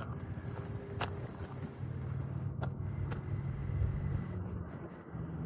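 Low steady rumble of jet aircraft engines, with a few faint clicks about one, two and a half and three seconds in.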